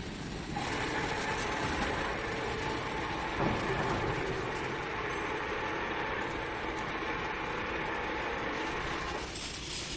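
Plastic pipe belling machine running: steady mechanical clatter with a faint hum, and a single knock about three and a half seconds in.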